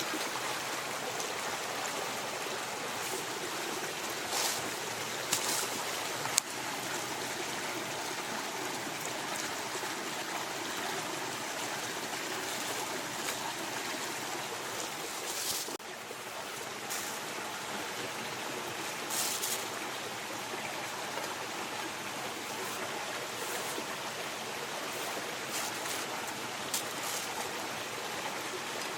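Mountain stream running steadily over rocks, with a few short clicks and taps scattered through it.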